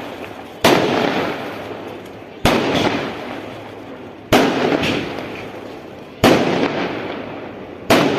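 A series of five loud bangs, about one every two seconds. Each bang is followed by a noisy tail that fades over a second or so.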